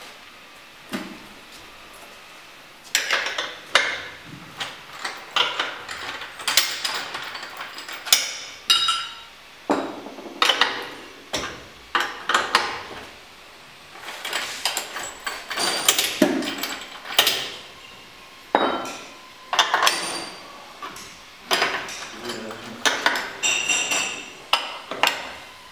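Irregular metallic clanks, clicks and knocks from the steel clamps of a hydraulic butt fusion welding machine as its clamp nuts and jaws are worked by hand. There is one knock about a second in, then steady clattering from about three seconds in, some strikes ringing briefly.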